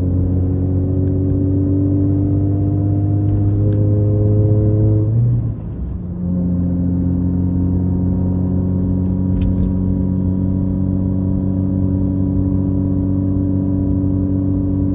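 Supercharged EZ30 flat-six of a Subaru Outback 3.0R heard from inside the cabin, pulling under acceleration with its pitch rising slowly. About five seconds in it changes gear with a brief dip, then runs on at a lower, nearly steady pitch in the next gear.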